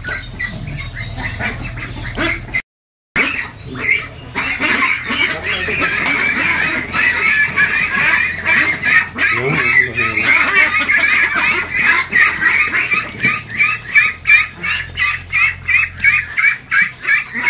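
A flock of young white Pekin ducks calling all at once: many short, high quacks overlap into a steady chorus. The chorus grows denser after a brief break about three seconds in, and near the end turns into a fast, regular run of sharp calls.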